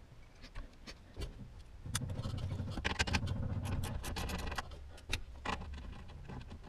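Ratchet wrench working on the steering-column mounting bolts under the dash: a dense run of rapid metallic clicks for a couple of seconds after about two seconds in, with scattered single clicks and knocks of the tool against the column before and after.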